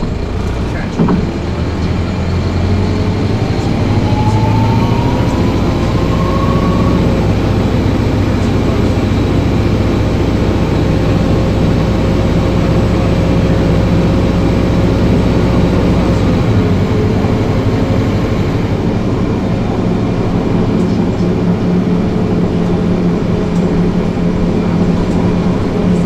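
A 1994 TMC RTS transit bus's Detroit Diesel Series 50 engine and Allison VR-731 automatic transmission under way, heard from inside the bus: a thump about a second in, a whine rising in pitch from about three to seven seconds, then a steady loud drone whose deepest tones drop away about sixteen seconds in.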